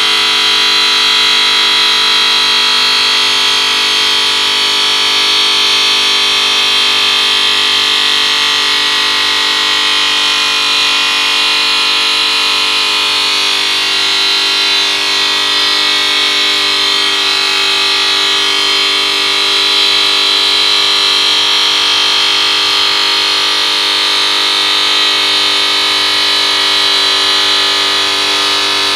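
OMC Titan 3500 five-axis CNC bridge saw cutting a bevel along a stone slab with its tilted diamond blade: a loud, steady high whine.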